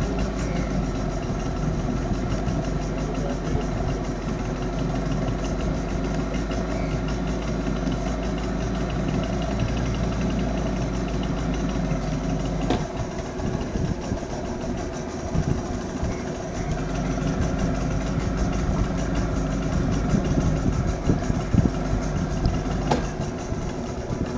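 Boat engine idling steadily, its low hum dropping away about thirteen seconds in.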